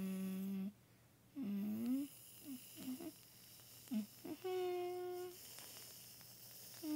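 A person humming a string of short, wordless notes: some held steady, a few sliding up or down, the highest and longest one about halfway through.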